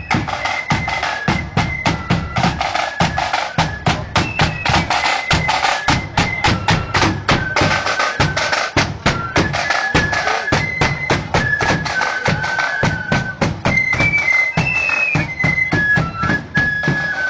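Marching flute band playing a high, shifting melody on flutes over a steady, rapid beat of snare and bass drums.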